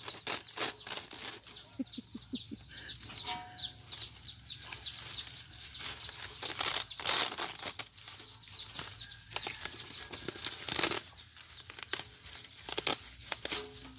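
Burnt circuit-board layers being peeled, flexed and scratched apart by gloved hands: irregular crackling and snapping, with louder snaps about seven and eleven seconds in.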